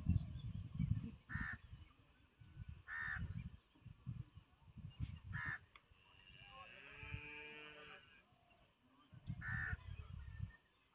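A crow cawing four times, short harsh calls a few seconds apart, over an irregular low rumble of wind on the microphone. A longer drawn-out call with a falling pitch is heard from about six to eight seconds in.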